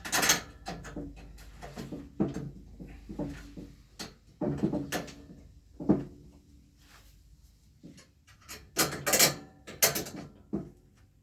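Ski lift chair parts being handled while an armrest is fitted: a series of knocks, clunks and rubbing, some with a brief ringing note, the loudest near the start and in a cluster near the end.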